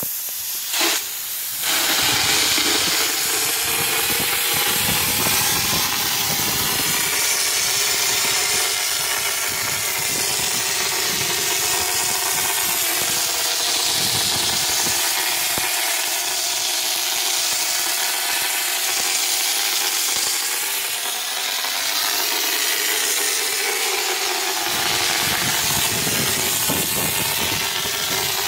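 Hopper texture spray gun hissing steadily as compressed air blasts textured wall coating from its nozzle, with a short break about a second in.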